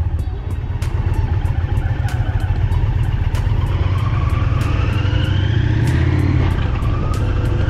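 Indian Challenger's V-twin motorcycle engine running on the move, rising in pitch as it accelerates about halfway through.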